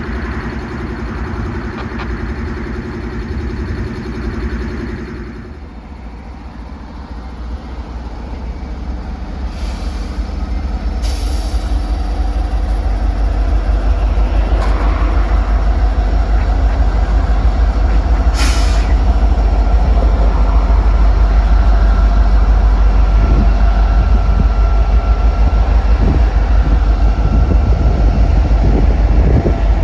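Freight train diesel locomotives running with a steady engine note, then a deep rumble that builds and holds as the train moves. A few short hisses come through in the middle.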